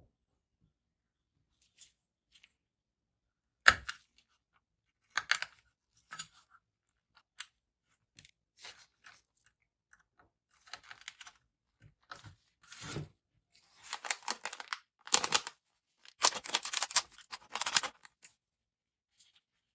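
Hands handling small parts and packaging: a sharp click about four seconds in, then scattered clicks and short crinkling rustles that come thicker in the last few seconds.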